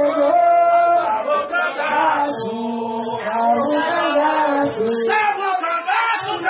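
A group of voices singing an Umbanda ritual chant (ponto) together in unison, with long held notes.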